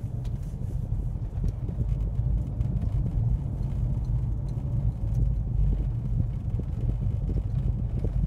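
Low, steady rumble inside the cabin of a Mercedes CLA 200 creeping along slowly: engine and tyre noise from the car.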